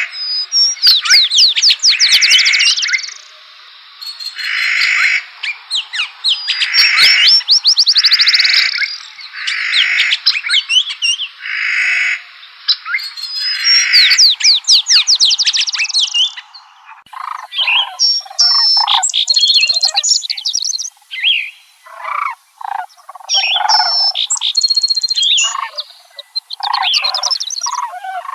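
Songbirds singing and calling: repeated song phrases full of rapid downward-sweeping notes, then, about halfway through, an abrupt change to a different chorus of short, broken calls.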